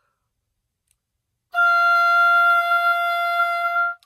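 Oboe playing one steady held note, starting about a second and a half in and stopping just before the end. The note is played after all the air has been exhaled, showing how little air the oboe needs to sound.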